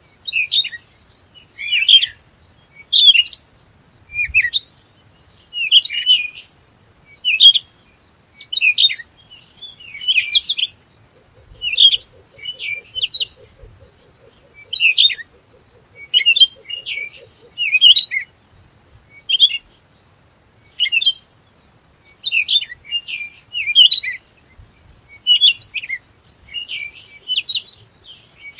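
Small songbird chirping: short, bright, high twittering phrases repeated about once a second.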